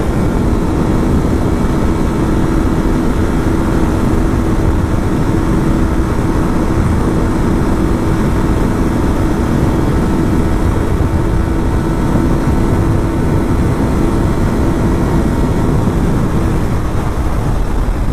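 Yamaha YZF-R3 motorcycle's parallel-twin engine running at a steady cruise, with heavy wind rush over the helmet microphone.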